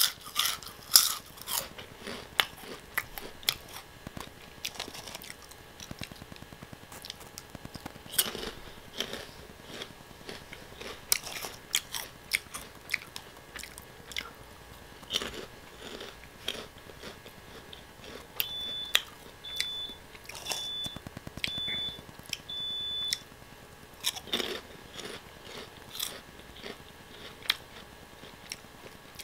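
Close-miked crunching and chewing of O!Gamja crunchy potato-stick snacks, bitten off one by one in irregular crisp crunches. About two-thirds of the way through, five short high beeps sound about a second apart.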